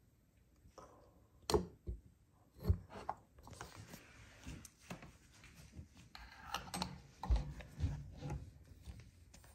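Stainless espresso portafilter and dosing cup being handled, with a few sharp knocks and clinks as they are separated and set down. Near the end the portafilter scrapes and knocks as it is twisted into the lever machine's group head.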